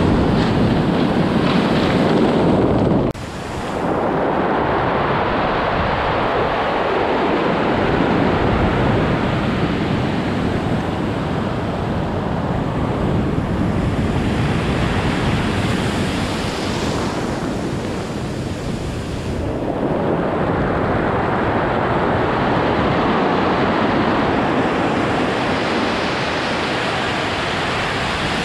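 Ocean surf breaking and washing up over a pebble beach, with wind on the microphone. The rush drops suddenly about three seconds in, then ebbs and swells again with the waves.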